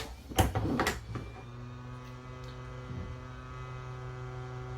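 A brief rattle of handling noise, then about a second and a half in a steady electrical hum with several pitched overtones starts and holds level.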